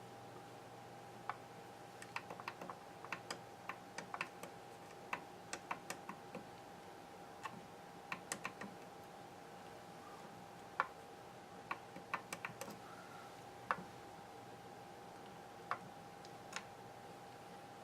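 Irregular light clicks of keys or buttons being pressed, sometimes several in quick succession, over a faint steady tone.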